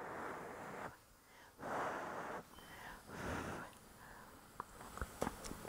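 A person blowing three times on a hot spoonful of food to cool it, each a short breathy puff, followed by a few faint clicks near the end.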